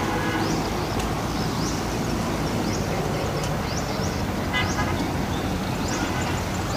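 Tractor diesel engines running steadily as the tractors pull round balers rolling rice straw, a continuous low drone. Short high chirps repeat over it every second or so, and there are brief tooting tones about four and a half seconds in.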